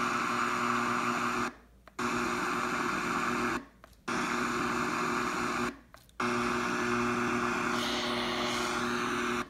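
W-King S20 Bluetooth speaker's FM radio playing steady static hiss with a faint hum, with no station tuned in. The hiss cuts out abruptly three times, about half a second each time, as buttons on the speaker are pressed.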